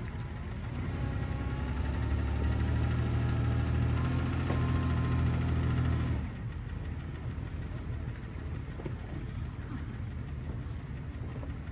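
Car engine pulling harder for about five seconds, then easing off sharply about six seconds in and running on at a lower idle.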